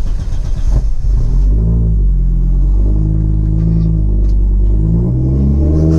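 Audi UrS4's turbocharged 2.2-litre inline five-cylinder (AAN 20v) engine running as the car pulls away slowly, heard from inside the cabin. The engine note rises and falls briefly about one and a half seconds in, and again near the end.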